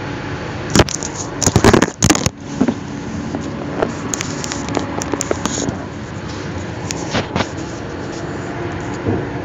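Steady running noise of a commuter train heard from inside the carriage. Over it, loud crackling knocks and rubbing from the recording phone being handled against its microphone, clustered about one to two seconds in, with a few lighter ones later.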